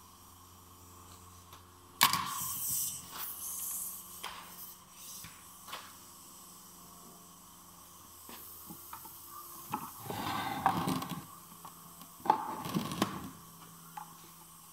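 Metal knocks and scraping as a Peugeot/Citroën manual gearbox casing is shifted and turned round on the workbench. A sharp knock comes about two seconds in, and bursts of clatter follow near the end.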